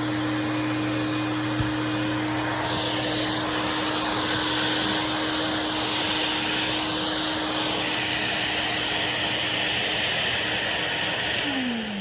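Hoover Swingette vacuum cleaner running steadily, a motor hum under a rushing hiss of air that grows louder and brighter about three seconds in. Near the end it is switched off and the motor's pitch falls as it winds down.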